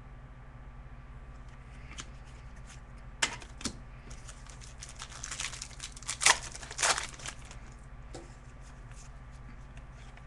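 Hockey card packs being opened: wrapper crinkling and tearing, in a couple of short rustles about three seconds in and a denser run of rustling and tearing a couple of seconds later, over a steady low hum.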